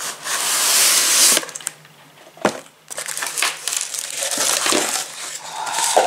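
Cardboard box and plastic wrapping rustling and scraping as an electric coffee grinder is slid out of its box and handled. The loudest rustle-scrape comes in the first second and a half, a sharp knock about two and a half seconds in, then lighter crinkling.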